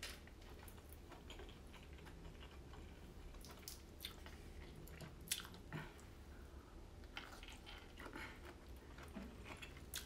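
A person chewing food close to the microphone: quiet, irregular wet smacks and mouth clicks.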